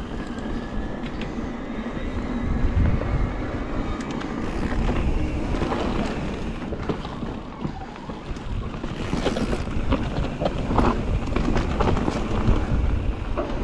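Wind buffeting the microphone while riding an electric mountain bike down a dirt trail, with tyre noise and scattered knocks and rattles as the bike runs over the ground.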